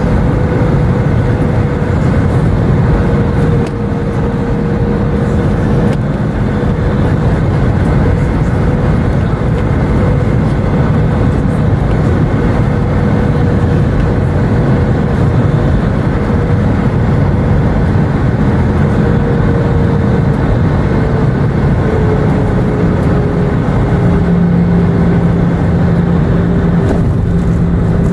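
Airbus A319 cabin noise at a window seat: a steady rumble of engines and rushing air, with a hum that slowly drops in pitch over the last ten seconds or so.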